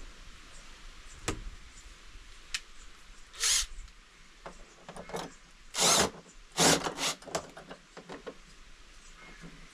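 A power screwdriver driving hinge screws into a Keter plastic storage box in a few short bursts, with clicks and knocks of handling between them.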